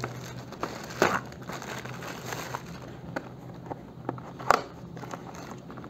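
Clear plastic bag crinkling and rustling as it is handled and unwrapped, with a few sharper clicks, the clearest about a second in and about four and a half seconds in.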